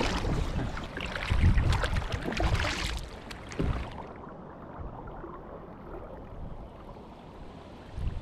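Kayak paddle strokes splashing in lake water, with wind buffeting the microphone for the first few seconds. The wind noise drops away about four seconds in, leaving quieter water lapping against the hull, then a sharp knock near the end.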